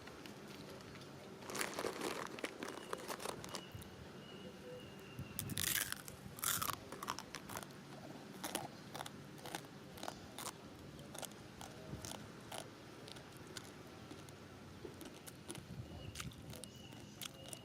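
Crunching and chewing of crisp food, in irregular sharp crunches, loudest about two and six seconds in.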